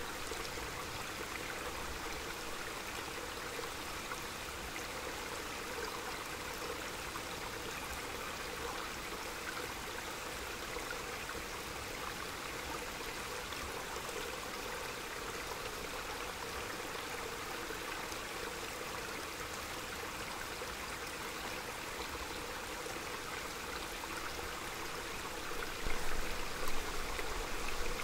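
Small mountain stream running steadily over stones. Near the end, gusts of wind hit the microphone as low rumbling surges, louder than the water.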